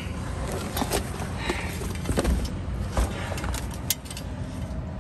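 Scattered clicks, knocks and rustles of someone shifting about in a cramped attic and handling the camera, over a steady low rumble.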